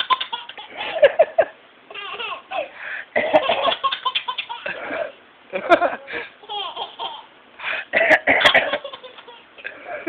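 A baby laughing in repeated giggling bursts at an adult's fake sneezes. The sneezes come as a few short, loud bursts every couple of seconds.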